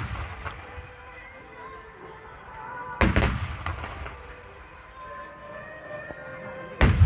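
Aerial fireworks shells bursting: a sharp bang about three seconds in and a louder one with several quick cracks near the end, each echoing away. Music plays steadily underneath.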